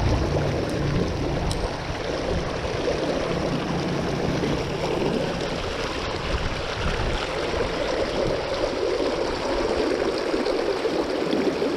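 Shallow mountain trout creek rushing and splashing over cobbles in a riffle: a steady, even water noise.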